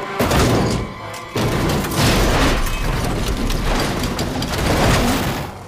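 Film sound effects of a stock car crashing: heavy impacts and rumbling as it flips and tumbles end over end, in two loud stretches, under dramatic film music.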